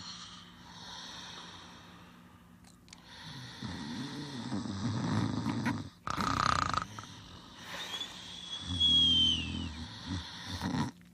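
Cartoon snoring: a long low snore, a short hissing breath out about six seconds in, then a second low snore with a high whistle that falls in pitch.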